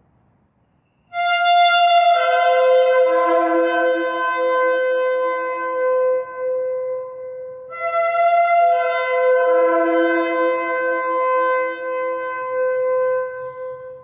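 Two long shofar blasts, one starting about a second in and the other about eight seconds in. Each opens on a higher note and settles onto a lower held note for several seconds, with several tones overlapping.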